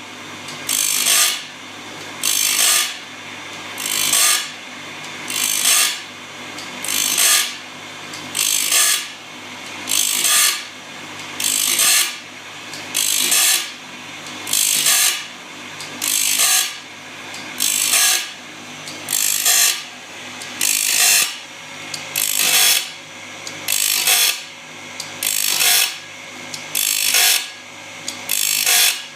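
Gear grinder at work: rhythmic rasping grinding strokes, about one every second and a half, over a steady low machine hum.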